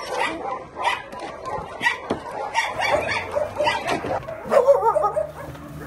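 A group of shelter puppies and young dogs barking and yipping, many short calls overlapping. About four seconds in the sound changes: whining calls over a low steady hum.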